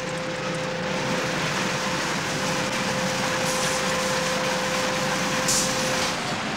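Bakery depanning machine running steadily, a mechanical drone with a thin steady hum, as it lifts hot loaves out of their baking tins. Short hisses of air sound about three and a half and five and a half seconds in.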